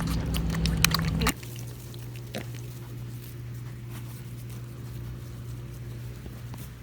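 Piglets slurping and eating their milk formula over a steady low hum. The sound drops sharply about a second in to quieter small wet, pattering noises.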